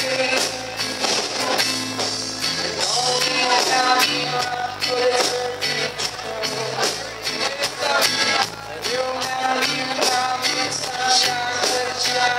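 Live reggae band playing through a PA: a steady drum beat with bass, electric guitar and keyboards, and a voice singing over it.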